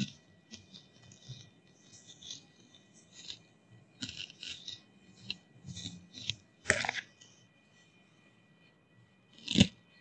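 Blackboard duster rubbing chalk off a chalkboard in short scratchy strokes, then a louder sharp knock about two-thirds through and another, the loudest, near the end.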